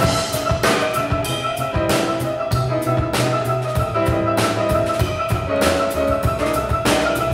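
Jazz piano trio playing: acoustic piano holding notes over a walking double bass line, with the drum kit striking a steady beat a little under twice a second.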